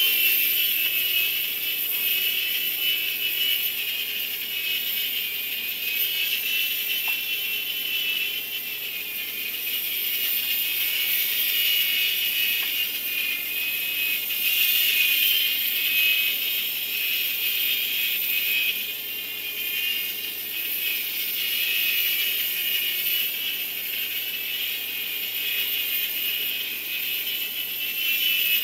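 Small electric motors and rotor blades of a cheap two-channel toy RC helicopter whining steadily in flight, the high whine swelling and fading as it moves about.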